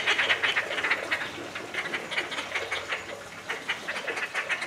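Inca terns calling nonstop, a fast chattering run of short, sharp notes, several a second, loudest in the first second.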